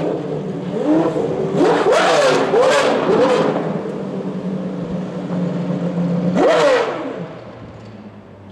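Pagani Zonda Revolucion's 6.0-litre AMG V12 running at low speed with sharp throttle blips. Four quick blips come in a row in the first few seconds and a bigger one comes about six and a half seconds in. After that the engine sound falls away.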